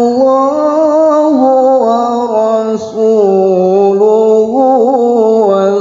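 A male qari's voice in melodic Quran recitation (tilawah), drawing out one long ornamented passage that slowly rises and falls in pitch, with a brief dip about three seconds in.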